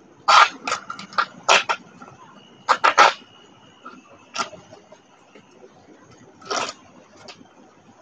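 Plastic milk jug being handled and fitted as a mini greenhouse: a string of short crinkles and scrapes, several close together in the first three seconds, then sparser.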